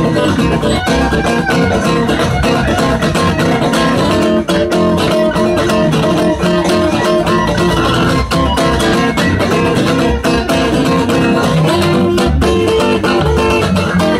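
Steel-string acoustic guitar strummed steadily as a folk-blues accompaniment.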